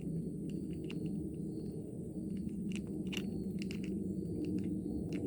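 Irregular sharp clicks of a ratchet and 10mm socket working loose the bolt that holds an ATV brake lever, over a steady low background hum.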